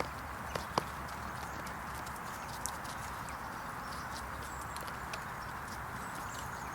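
Steady outdoor background hum with a few sharp, isolated clicks: two close together about a second in and a couple more later.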